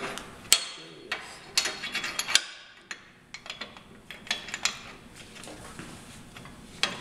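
Steel die and wrist pin being fitted into the swinging frame of a Hossfeld No. 2 bender: scattered sharp metal clicks and clanks, the loudest about half a second and two and a half seconds in.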